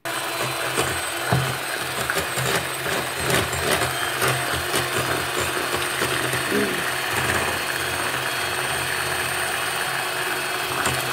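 Electric hand mixer switched on and running steadily, its beaters whisking eggs and sugar in a glass bowl, with occasional clicks of the beaters against the glass.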